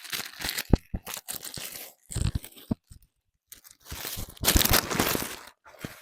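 Packaging being torn open and crinkled by hand: loud tearing and crunching noises in irregular bursts, with a short pause about halfway through and the loudest stretch near the end.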